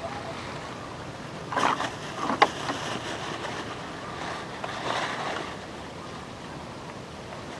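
Water splashing and sloshing in three short bursts, about a second and a half in, just after, and again about five seconds in, over a steady outdoor hiss.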